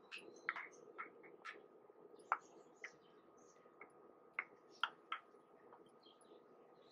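Faint, scattered small pops and crackles of wet herbal paste in oil in a cast iron pan, a dozen or so at irregular intervals, over a faint steady hum.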